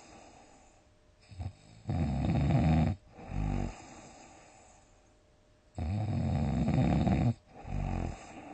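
A sleeping person snoring loudly, in two cycles about four seconds apart: each a long snore of about a second followed by a shorter one, with quiet breathing in between.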